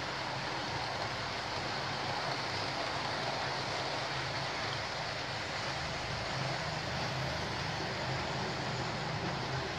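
Model trains running round a layout: a steady running noise of motors and wheels on the track, with a wavering low hum underneath.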